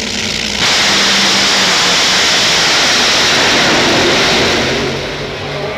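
Two nitro funny cars launching into a full-throttle drag-racing pass. A sudden, very loud engine roar starts about half a second in, holds for about four seconds, then fades as the cars run away down the track.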